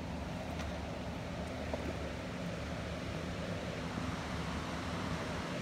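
Steady rush of water pouring from the dam, with a low steady hum underneath.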